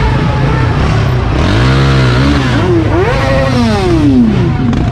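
Engines of motorcycles and a quad bike rumbling at low speed, with the throttle blipped twice so the engine pitch rises and falls; the second rev is the loudest and sweeps down slowly near the end.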